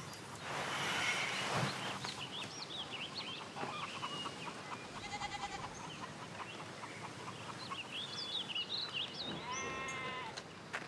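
Quiet farmyard ambience: small birds chirping on and off throughout, with a goat bleating once near the end.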